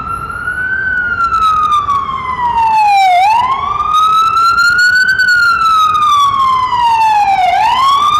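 FDNY ambulance's electronic siren on wail, its pitch rising and falling in slow sweeps of about four seconds. It grows louder over the first few seconds as the ambulance approaches and passes close by.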